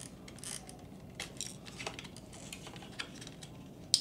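Quiet, scattered small plastic clicks and rattles of hands working inside a radio-controlled truck's chassis, freeing the servo's plug from the receiver; the sharpest click comes near the end.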